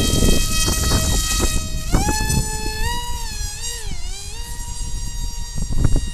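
Radio-controlled flying wing's motor and propeller whining in flight; the pitch steps up about two seconds in, wavers and dips in the middle, then holds steady. Wind rumbles on the microphone throughout.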